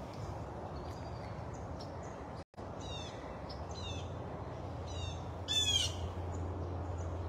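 Blue jay calling overhead: about four short calls, beginning about three seconds in.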